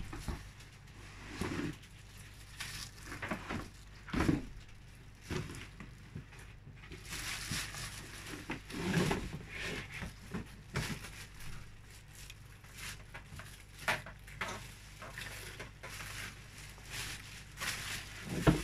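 Unpacking a tower fan from its cardboard box: crinkling of the clear plastic bag around the fan, mixed with scattered knocks and thumps of cardboard and the fan body being handled.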